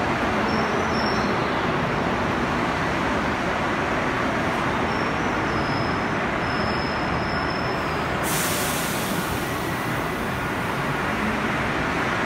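Montreal Metro MR-63 rubber-tyred subway train running alongside the platform with a loud, steady rumble. A high hiss joins about eight seconds in.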